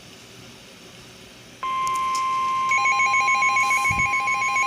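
A short quiet gap after the EAS data bursts, then the steady 1050 Hz alert tone of a National Weather Service warning broadcast starts about one and a half seconds in. About a second later, rapid pulsing beeps join the steady tone.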